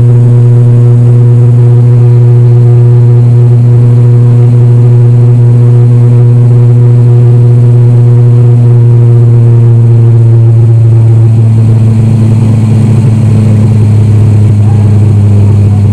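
Steady, loud drone of an ATR turboprop's engine and propeller, heard from inside the cabin beside the propeller during the climb. About eleven seconds in, the pitch of the drone drops slightly as the propeller slows.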